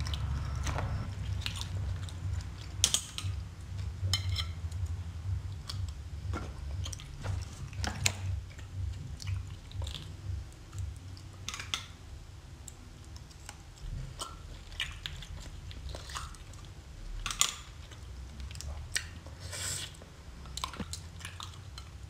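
Close-miked chewing and biting of whelk (sea snail) meat, an irregular run of short mouth clicks, with two sharper, louder ones about 3 seconds in and near 17 seconds.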